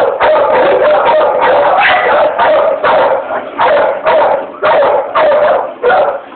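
American Pit Bull Terrier barking loudly and repeatedly, about two or three barks a second, at a decoy who is agitating her in a protection test.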